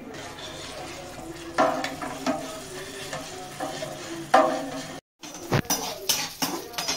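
Steel ladle stirring rice-flour batter in a large stainless-steel pot, scraping and knocking against the pot's sides with a metallic ring. After a brief break about five seconds in, the batter is thick and cooked, and the strokes become sharper scrapes and clicks.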